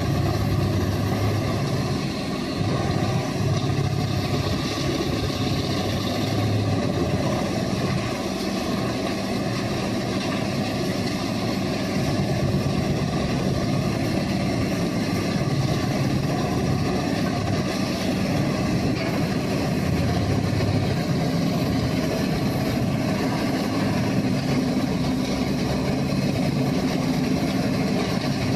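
Heavy equipment's diesel engine running steadily.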